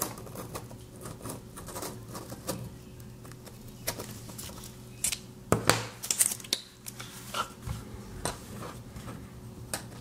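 Scattered light clicks, taps and rustles of hands handling an M.2 SSD and its clip-on heatsink and a plastic protective film, over a steady low hum.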